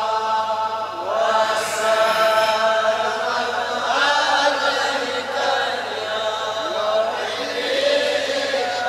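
Devotional chanting of a Kashmiri naat in praise of the Prophet: long, drawn-out sung lines whose pitch swoops up and then holds, with a faint steady hum underneath.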